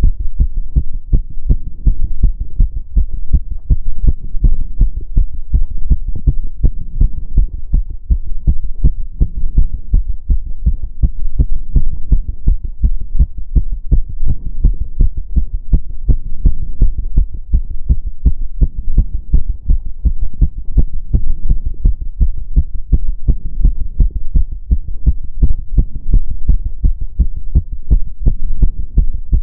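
A person's heart beating fast from step-up exercise, heard close up as a rapid, regular train of low thuds.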